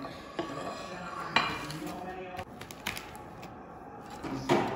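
Plates knocking and clinking on a stone countertop as pizza slices are served from a cardboard box, a few sharp knocks spread over the few seconds, the loudest near the end.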